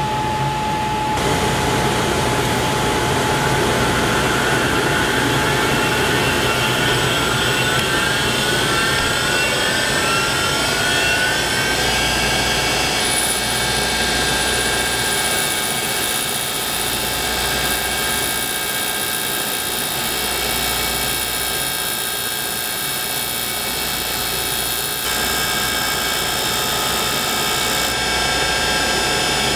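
Cutter grinder running an abrasive wheel through a slot in a semi-fired alumina bisque ceramic part, a steady grinding drone with several whine tones. One whine rises in pitch over roughly the first ten seconds.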